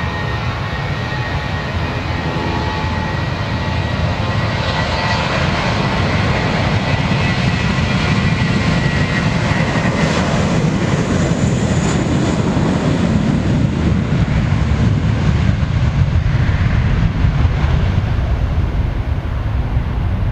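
Airbus A320-232's IAE V2527 turbofans at takeoff thrust during the takeoff roll. A steady high whine fades over the first few seconds, while the roar and low rumble of the engines build to their loudest as the jet passes, then ease a little as it pulls away.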